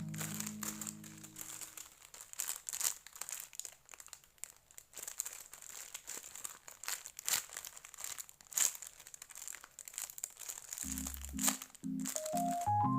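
Plastic packaging crinkling and crackling in many small, irregular crackles as a squishy toy is handled and unwrapped.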